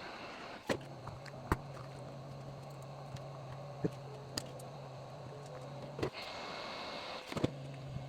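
A heat gun runs with a steady hum and air noise while the phone's cracked display is softened and pried loose. Sharp clicks and taps of the tools on the phone come every second or so, and the hum drops out briefly twice.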